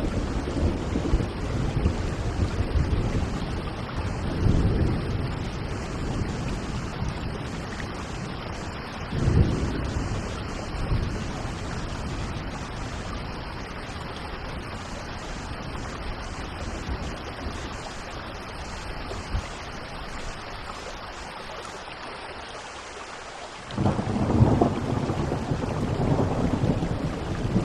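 Steady rain with thunder rumbling. There are low swells about four seconds in and again around nine seconds, then a louder rumble starts suddenly near the end and carries on.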